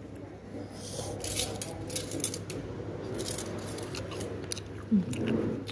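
Eating utensils clicking and scraping against a ceramic bowl: a scattered run of light clicks and scrapes, with one sharper knock about five seconds in.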